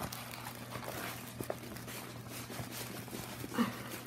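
Soft rustling and crinkling of a rolled diamond painting canvas, with its shiny plastic covering, being handled and lifted off a table, with faint scattered clicks. One brief louder sound comes about three and a half seconds in.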